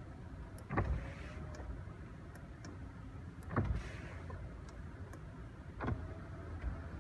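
Three dull knocks, about a second in, partway through and near the end, over a steady low hum.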